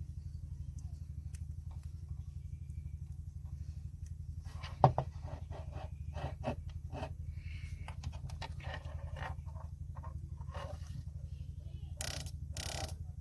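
A steady low hum with a fast ripple, as of a small motor running, under scattered clicks and knocks of handling from about halfway. One sharp click comes about five seconds in.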